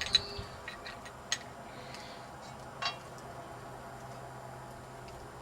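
A few light clicks and taps of small plastic fountain-valve parts being handled, the sharpest right at the start and two more about a second and three seconds in.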